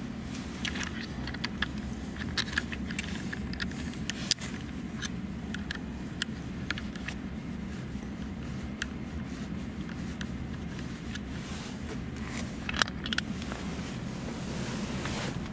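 Light metallic clicks and scrapes of a 3 mm hex key working the screws of a plastic headrest-monitor mount, with hands handling the mount on the headrest posts, over a steady low hum.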